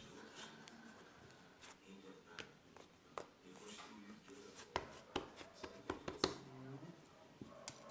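Hands working slime: scattered sharp clicks and small pops, coming more often and louder in the second half, over a faint voice.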